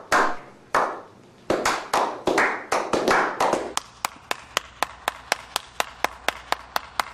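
Hand claps in a slow clap: echoing single claps under a second apart, quickening, then settling into a steady run of about four sharp claps a second.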